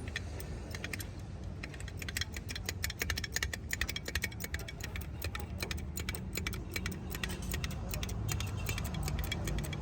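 Rapid, irregular clicking over a steady low hum, the clicks thickest in the middle of the stretch.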